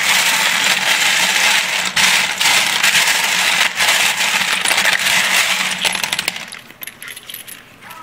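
Brass cartridge cases clinking and rattling against each other as a gloved hand scrubs them in a bowl of soapy cleaning water. The dense clatter eases off about six and a half seconds in.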